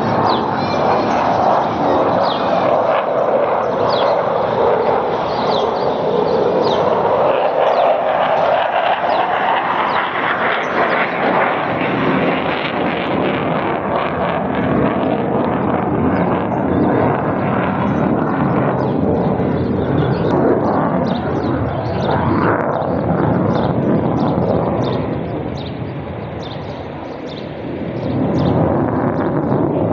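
Military fighter jets passing overhead with a continuous loud jet-engine roar; its pitch sinks and then climbs again over the first dozen seconds, and it eases off briefly a few seconds before the end before swelling back.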